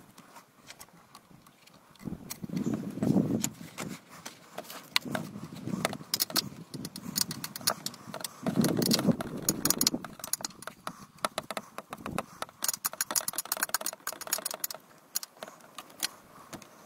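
10 mm ratchet spanner clicking in quick runs as it backs out a loosened bolt on the alternator decoupler bracket. The clicks come thickest in the second half, and there are two louder, muffled stretches of handling noise about three and nine seconds in.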